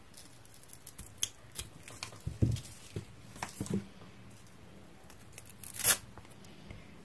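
Scissors snipping through a strip of hook-and-loop tape in a few short cuts, with a knock as they are put down. Just before the end, the loudest sound: a short rip as the hook and loop halves of the small piece are pulled apart.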